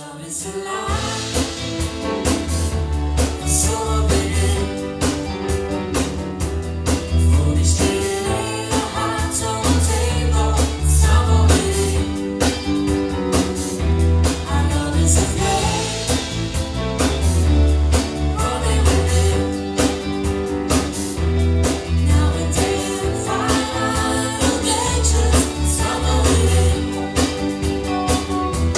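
A live band playing a song with sung vocals: drum kit, electric bass, electric guitar and keyboards, with a strong bass line and a steady beat.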